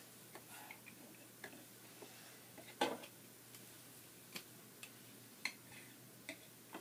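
Scattered small clicks and taps from plastic fashion dolls being handled and posed, coming at uneven intervals, with the loudest click about three seconds in.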